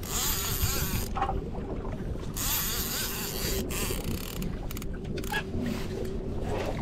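Fishing reel being cranked in spurts against a hooked albacore tuna, its gears whirring and clicking, over the steady drone of the boat's engine.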